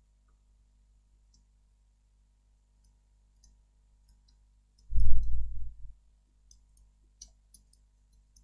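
Scattered computer mouse clicks and keyboard key presses. About five seconds in comes a loud, low rumble lasting about a second.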